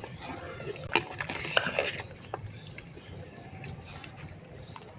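A metal ladle stirring a large pot of boiling beef trotter broth, with a few sharp clinks against the pot in the first two seconds and a steady low bubbling under them.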